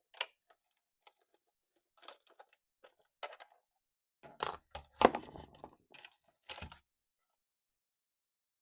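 Hands handling a toy car and its packaging: scattered small clicks and crackles, then a run of louder knocks about halfway through, the loudest a sharp knock around five seconds in, with a few more near the end.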